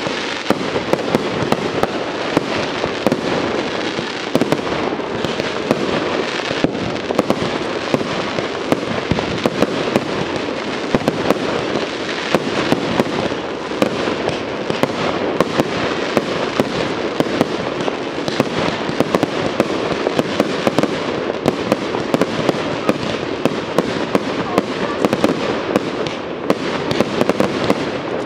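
Fireworks display firing a dense, unbroken barrage: many sharp bangs and pops a second over a continuous hiss of launches and bursts.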